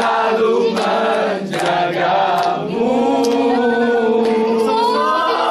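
A group of people singing a song together, with long held notes in the second half.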